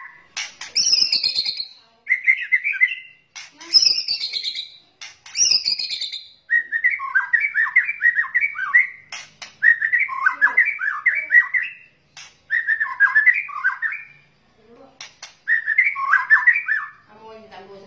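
White-rumped shama (murai batu) kretekan lure calls. Three high, falling whistled notes come in the first six seconds, then about five bursts of fast chattering notes, each a second or two long, with short gaps between them.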